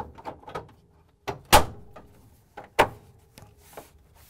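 Plastic freezer back panel being pushed and pressed by hand into its locking tabs on the back wall: a series of sharp plastic knocks and clicks at uneven intervals, the loudest about one and a half seconds in.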